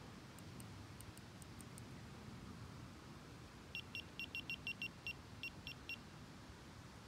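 Carp fishing bite alarm beeping: about a dozen short, high beeps at uneven spacing, starting about four seconds in, as line is drawn across the alarm to give it slack. A few faint high ticks come before them.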